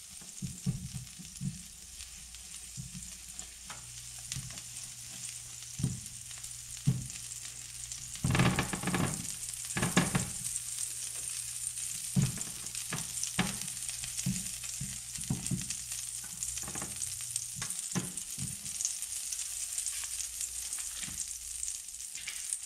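Butter sizzling and frying as a stick of it is rubbed over a hot ridged grill pan, with a steady hiss and repeated scraping and knocking of the butter against the ridges. The knocks are loudest about eight to ten seconds in.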